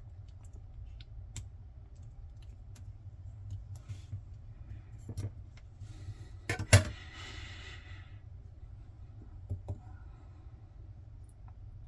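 Small metallic clicks and taps from tools working a disassembled padlock, with one sharp, loud click about seven seconds in followed by a brief hiss.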